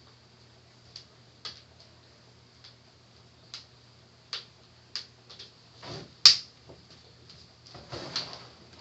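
Plastic laptop screen bezel being pressed back onto the lid: scattered small plastic clicks as its tabs seat, with one sharp snap about six seconds in and brief rubbing of plastic around it and again near the end.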